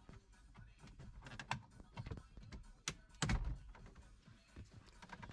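Plastic clicks and knocks as a plastic trim pry tool works around the VW T6 dashboard surround of the head unit, levering the trim away from its clips, with a heavier thump about three seconds in.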